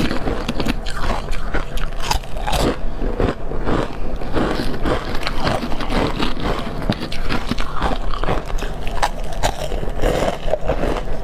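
Ice chips coated in powdered milk being bitten and chewed close to a clip-on microphone: a dense, continuous run of crisp crunches, several a second.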